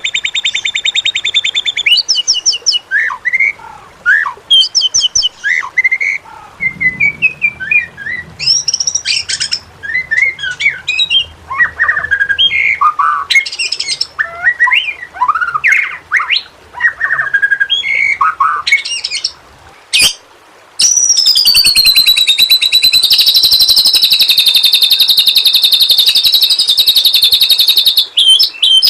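White-rumped shama (murai batu) singing: quick, varied whistled and chattering phrases that glide up and down. In the second half these give way to a long, even, buzzy trill.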